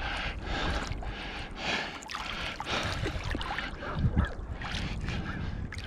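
Shallow seawater sloshing and splashing in uneven surges as a person wades and digs by hand in the sand for pipi shellfish.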